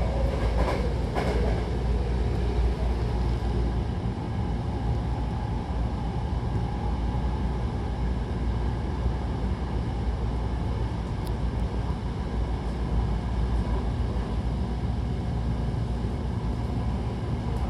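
Hankyu Takarazuka Line electric train running along the track: a steady rumble of wheels on rails, with two short clicks about a second in.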